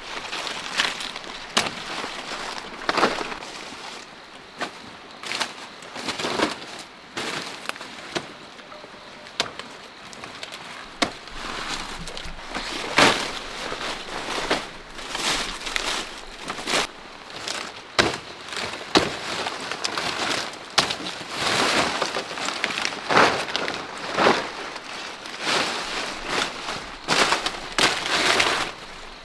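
Knife peeling and cutting kohlrabi: irregular crisp cracking and scraping strokes, about one every second or two, a few drawn out into longer scrapes.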